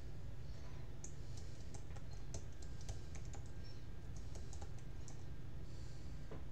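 A run of light, irregular clicks lasting about four seconds, over a steady low hum.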